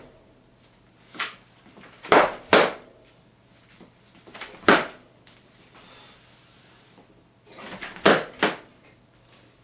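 Wooden practice swords (bokken) clacking together in sparring exchanges: a single sharp clack, then a quick double clack, another single, and a final quick double clack near the end.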